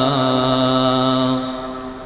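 A man's voice chanting a verse in a melodic style, holding one long note that wavers slightly at first, then steadies and fades away after about a second and a half.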